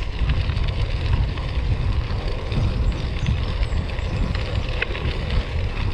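Bicycle tyres rolling over a path of loose chippings: a continuous crunch and patter of small stones, with wind rumbling on the microphone.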